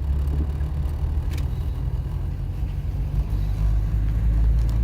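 Car engine and road noise heard from inside the cabin while driving, a steady low rumble that grows a little louder about three seconds in.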